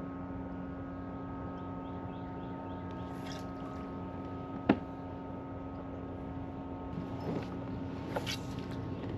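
Kayak's electric trolling motor running with a steady hum, and a single sharp knock about halfway through, with a few softer rustles near the end.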